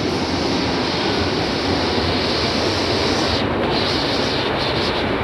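Berlin U-Bahn train coming into an underground station: a steady, loud noise of wheels on rails and running gear.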